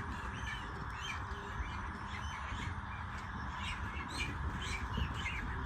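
A flock of chickens squawking and calling, many short high calls over a steady background din.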